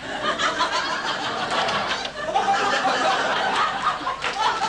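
People laughing and chuckling, mixed with talking voices.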